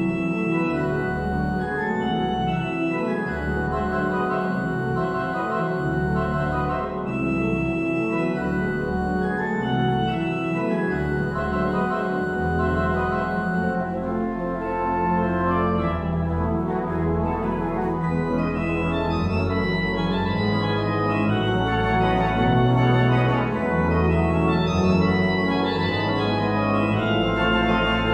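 2010 Goll pipe organ playing a scherzo: busy, quick notes on the manuals over held pedal bass notes that change every second or two, growing a little louder in the second half.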